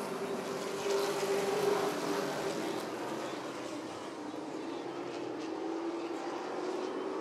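Several 602 Late Model stock cars with GM 602 crate V8 engines running at speed in a pack. Their steady engine note dips a little midway and climbs again near the end.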